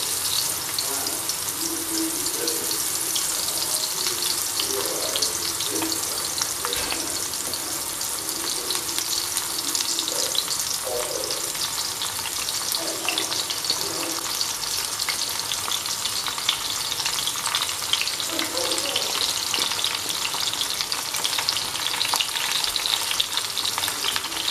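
Milky mushroom slices frying in hot mustard oil in a metal kadai: a steady crackling sizzle that goes on as more slices are laid into the pan by hand.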